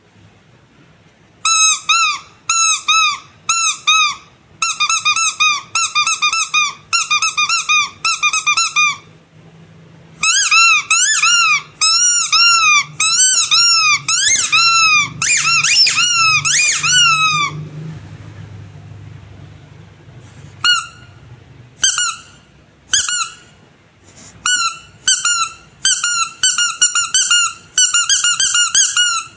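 Squeaky rubber animal toy squeezed over and over, each squeeze a short high-pitched squeak that bends in pitch. The squeaks start about a second and a half in, come in quick runs with a long dense stretch in the middle, thin out to single squeaks, then speed up again near the end.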